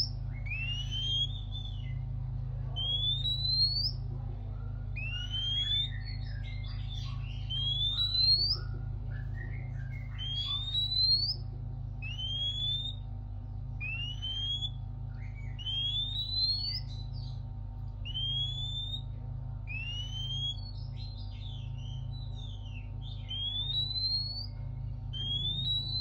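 Oriental magpie-robin singing: a rising whistled note repeated about every two seconds, with short jumbled notes between, over a steady low hum.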